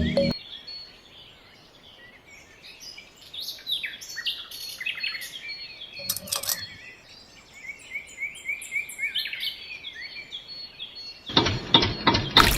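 Small birds chirping and calling in quick, repeated high notes. Near the end a loud, steady rushing noise sets in suddenly, like running water or a small motor.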